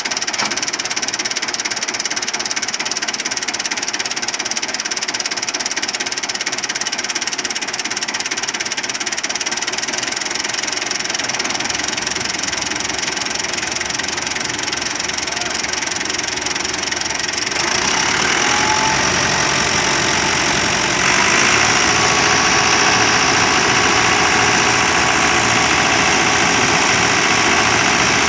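Fiat 640 tractor's diesel engine running steadily under load, driving a wheat thresher through its power take-off, the thresher's drum adding a dense whirring rush. The noise gets louder and brighter about two-thirds of the way through.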